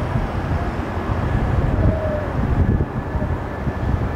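Airbus A330 jet engines at taxi power: a steady low rumble with a faint high whine coming in about halfway, and wind buffeting the microphone.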